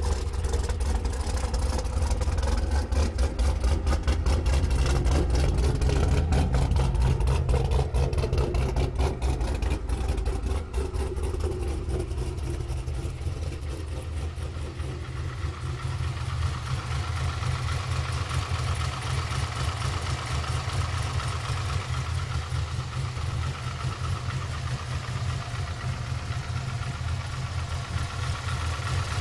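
Chevrolet Camaro engine idling with a rapid, sharp knocking that the owner asks might be piston slap. The knocking is dense for the first ten seconds or so, then fades as the engine settles to a quieter, steadier idle.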